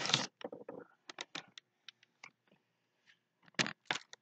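Handling noise from a camera being picked up and moved: a rustling burst at the start, then scattered clicks and taps, two of them louder near the end.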